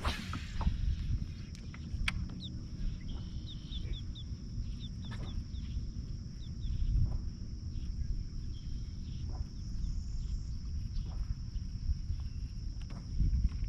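Outdoor lake ambience: a bird calling in a quick series of short chirps in the first half, over a steady high drone and a low rumble, with a few scattered clicks.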